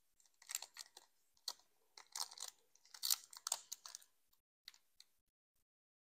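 Foil wrapper of a Pokémon booster pack crinkling and crackling as it is torn open by hand, in irregular clusters of sharp crackles, thinning to a few lone clicks near the end.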